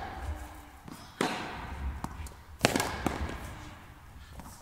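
Tennis ball struck by rackets in a rally on an indoor court: two clear strikes about a second and a half apart, the second the loudest, with fainter ball sounds between, each ringing out in the hall's echo.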